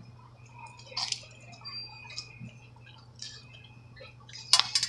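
Watery slime being squeezed and pressed by hand, making short wet squelching and popping sounds every second or so, with the loudest cluster near the end.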